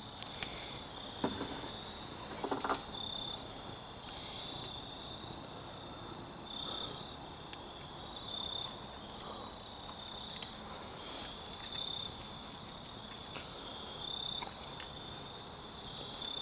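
A steady, high-pitched insect trill that swells briefly every second or two, with a couple of soft rustles in the first few seconds.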